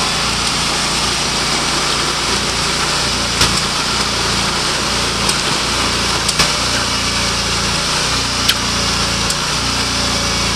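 Portable sawmill running steadily, its small engine driving the saw through a mesquite log, with a few short sharp clicks over the top.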